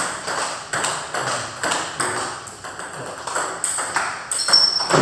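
Table tennis ball clicking back and forth off paddles and table in a rally, about two to three sharp hits a second, each with a short echo from the bare hall.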